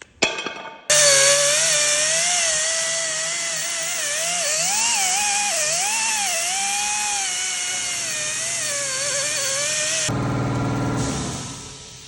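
A power tool running for about nine seconds with a loud hiss, its whine wavering in pitch as the load changes. It ends with a short, lower buzz that fades out.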